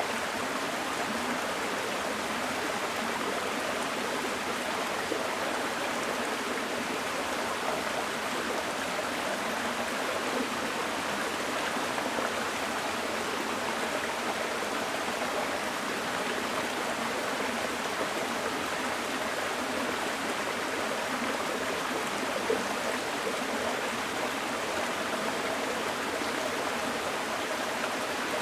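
Small mountain stream flowing over rocks: a steady rushing and babbling of water.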